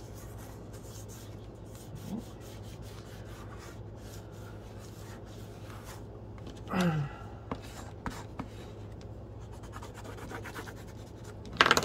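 Paper rustling and rubbing against a journal page as sticky notes and paper cut-outs are lifted, peeled and slid into new places, with light taps on the cutting mat and a sharper tap near the end, over a steady low hum.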